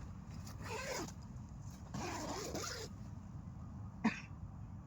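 A zipper being pulled in two long strokes, then a short knock near the end.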